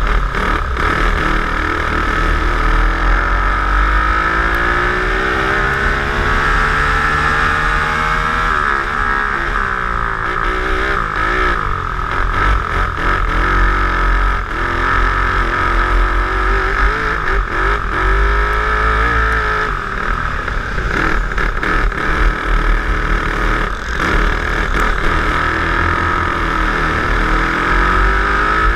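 Twin-engine dirt kart running at speed, engine pitch rising as it accelerates and dropping as it backs off for corners, several times over, with a low rumble underneath.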